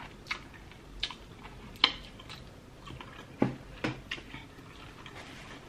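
A person chewing food with wet mouth clicks and smacks, about seven sharp clicks spread irregularly over a few seconds.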